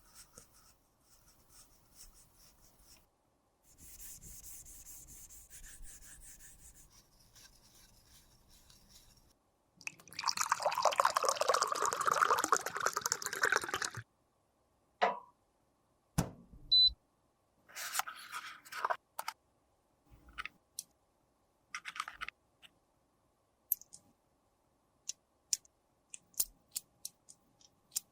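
Close-up sounds of makeup being worked by hand. Soft crackling and rubbing come first, then a loud noisy stretch of about four seconds in the middle, then a series of short clicks and taps.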